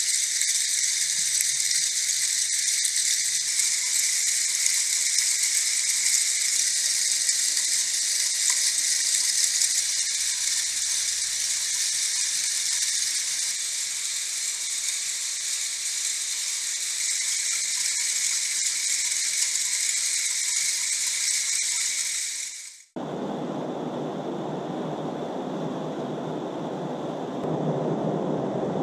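Dense, steady metallic rattle and hiss of a hundred prepared DC motors whirling metal ball chains inside wooden type-case compartments. About 23 seconds in it cuts off abruptly and a lower, softer steady rustling hiss from another kinetic sculpture takes over.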